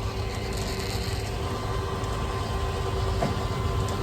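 Steady low hum of a running car, with a faint constant tone over it and no distinct knocks or changes.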